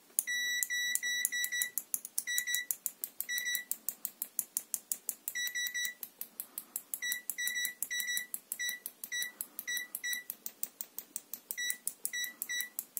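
Digital multimeter continuity beeper giving short, high-pitched beeps in irregular groups as the two probe tips are tapped together. Light clicks of the tips touching run throughout, and some touches get no beep: the meter, beeping in diode-test mode, misses some connections.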